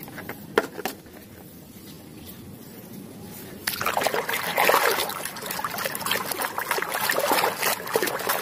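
A couple of light knocks, then about three and a half seconds in a hand starts swishing and splashing through muddy water in a plastic tub, and keeps on splashing.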